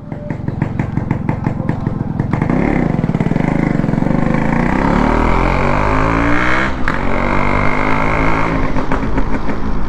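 Yamaha RX100's two-stroke single-cylinder engine idling, then rising in pitch as the motorcycle pulls away. A short break about two-thirds of the way through marks a gear change, after which it runs at a steady pitch.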